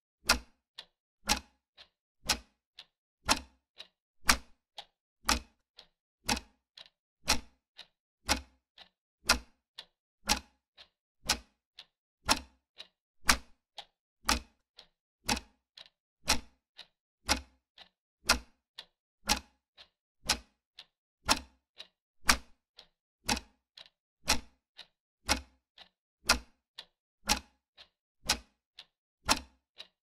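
Clock-tick sound effect: a sharp tick about once a second, marking off each second of a countdown timer.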